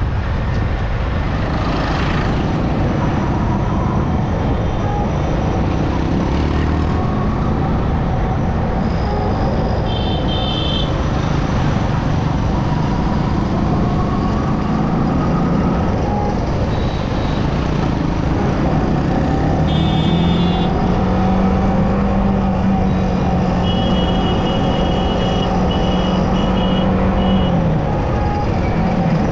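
Motorcycle riding in slow traffic, probably a Yamaha R15M: the engine note rises and falls over steady wind and road noise. Short, high electronic beeps come from the surrounding traffic three times, the last as a quick run of several.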